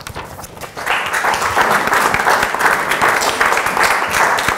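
Audience applauding, the clapping swelling to full strength about a second in.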